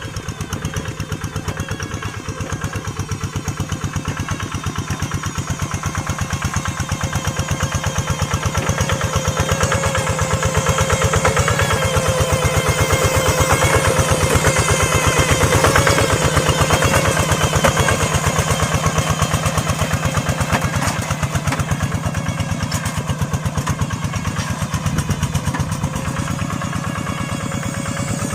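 Hand tractor engine running steadily with a fast, even pulsing beat while working a wet rice paddy, growing louder toward the middle and easing off near the end.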